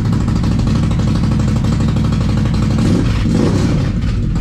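Can-Am Renegade 1000's Rotax V-twin engine running steadily through a newly fitted RJWC aftermarket exhaust, with a deep, really bassy note. The bass booms around the inside of the garage.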